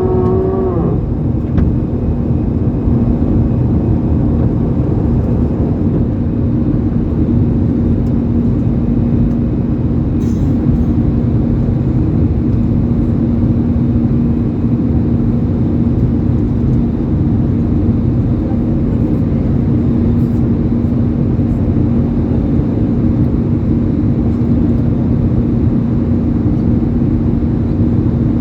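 Airbus A320 cabin noise with the engines at high power: a loud, steady rumble with a constant low hum. A brief wavering tone cuts off about a second in.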